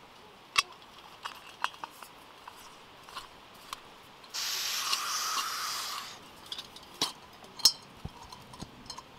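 Light metallic clinks and taps of a backpacking cook kit being handled as a small titanium canister stove is taken out and screwed onto a gas canister. A steady rushing hiss about two seconds long comes midway and is the loudest sound.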